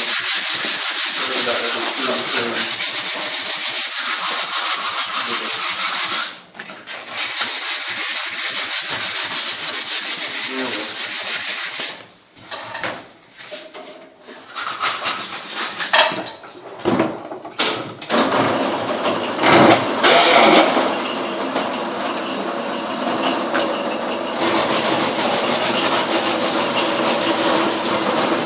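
Wood being sanded: a steady, hissing abrasive noise in long stretches, broken by short pauses about 6 and 12 seconds in, and quieter and more uneven for a while after about 18 seconds.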